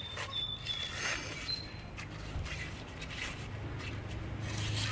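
Paper being sliced by a sharp single-bevel axe edge: soft rustling and scraping with a few light strokes, the blade cutting the paper cleanly as a sharpness test.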